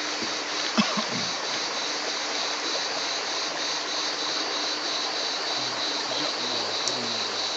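Steady rush of a stream's flowing water, with two short clicks about a second in and faint low voices near the end.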